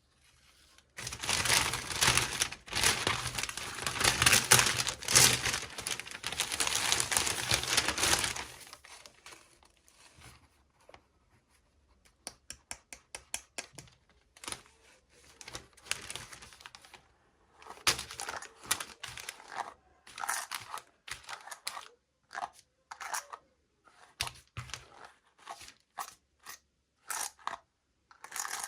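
Plastic packaging being torn open and crinkled for several seconds. Then comes a quick run of small clicks, and scattered rustles and taps.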